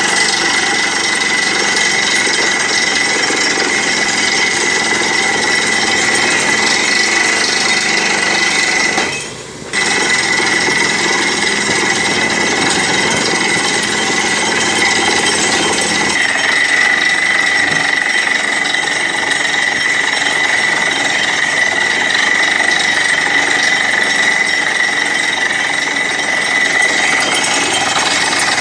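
Borewell drilling rig drilling through rock with a down-the-hole air hammer, compressed air blasting dust out of the borehole: a loud, unbroken mechanical din with a steady high whine, dipping briefly about nine seconds in.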